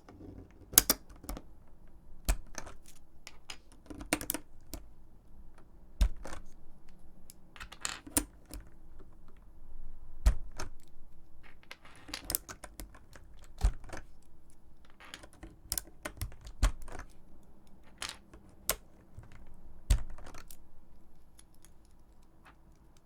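Irregular sharp plastic clicks and clacks from mechanical keyboard parts being worked by hand, roughly one every second or so, some louder than others.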